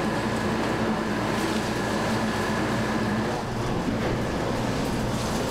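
Refrigeration machinery running with a steady hum and a faint constant whine; the low tone weakens slightly about three seconds in.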